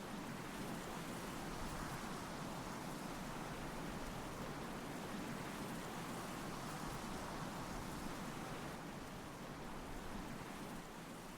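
Faint, steady hiss of background noise with no distinct events, dropping slightly about ten and a half seconds in.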